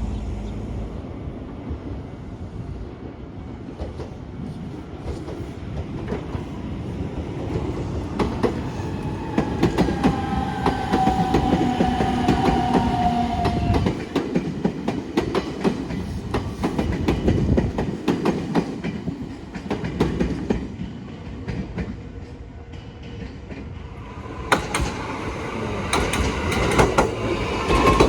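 Nankai Railway electric train passing, its wheels clacking over rail joints in a fast, busy rhythm, with a high tone that falls slightly in pitch for a few seconds as it goes by. The clacking dies down and a further run of clacking starts near the end.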